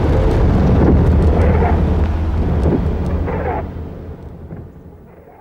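Low, rumbling outdoor ambience from archive field footage, with a few faint distant calls, fading out over the last two seconds.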